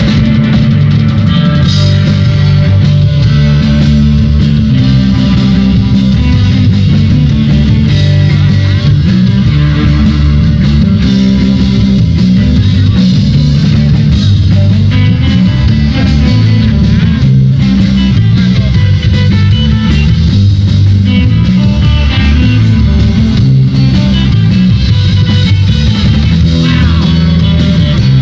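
Live rock band playing loudly: electric guitar over a drum kit, with a busy, shifting low end.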